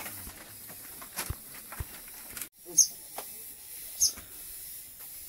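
Bare feet on a bamboo slat floor: scattered light knocks and creaks, then three sharper cracks about a second and a half apart in the second half.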